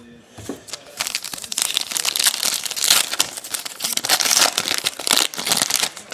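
Trading-card pack wrapper crinkling, handled close to the microphone. A few light clicks come first, then dense, loud crackling from about a second in until just before the end.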